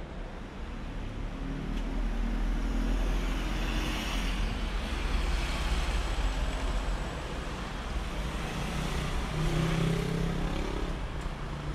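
Road traffic: cars driving past close by, engine and tyre noise swelling as each one passes, over a steady low rumble. The passes are loudest about four to six seconds in and again near ten seconds.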